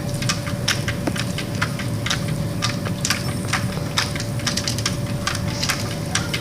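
A cat clawing at a humidifier: a rapid, irregular run of scratchy clicks, several a second, over a steady low hum.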